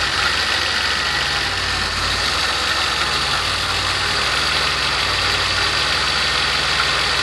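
DeLorean DMC-12's 2.85-litre PRV V6 idling steadily, heard from the open engine bay, with a strong hiss over the even low pulse of the exhaust. The engine has just had its original fuel lines replaced and now runs smoothly after a rough start.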